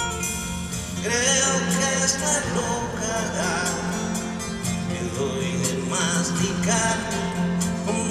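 Live band music in a large arena, heard from the audience: acoustic guitar with other instruments, a melody line sliding upward about a second in.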